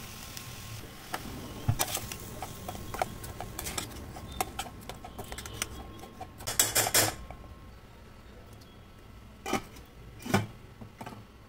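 Long steel spoon scraping and clinking against a stainless steel pan while stirring a dry mix of grated coconut and chopped spring onion, busiest and loudest a few seconds before the middle. A steel lid is then set on the pan with two clinks near the end.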